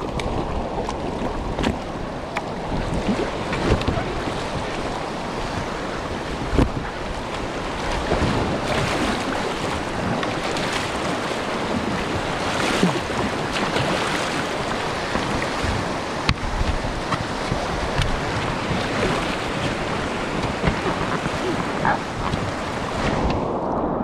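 River water rushing and splashing close to the microphone around an inflatable packraft, with scattered short splashes and wind buffeting the microphone.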